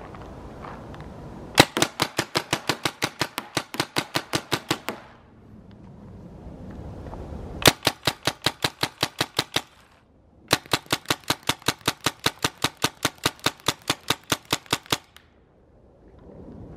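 Tippmann TMC paintball marker, hopper-fed and running on CO2, firing fast strings of shots at about five a second. There are three strings with short pauses between them, each shot a sharp pop.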